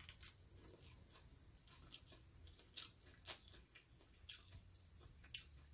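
Faint, irregular clicks and soft crunches of someone quietly chewing a mouthful of steamed ragi idiyappam.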